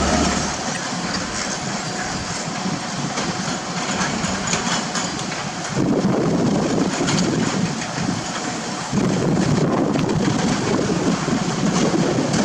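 Heavy construction machinery running, a rough rumbling and clattering noise that grows louder about six seconds in and again about nine seconds in.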